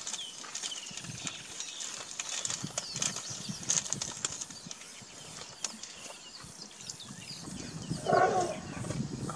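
Outdoor bush sound of a zebra herd on the move: birds chirping throughout over scattered clicks and knocks, with a short, loud animal call about eight seconds in.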